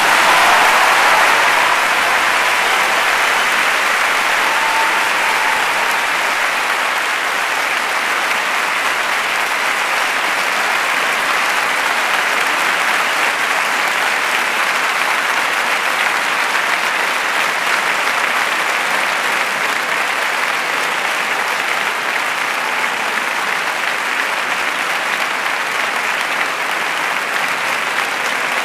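Large concert-hall audience applauding as an orchestral and choral piece ends: a dense, steady wash of clapping, loudest in the first couple of seconds and then easing slightly.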